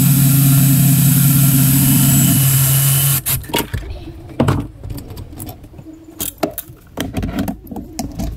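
Red cordless power tool running steadily on a fastener in a Sea-Doo engine bay, then cutting off suddenly about three seconds in. Scattered metallic clinks and knocks follow as a metal bracket is lifted off the engine.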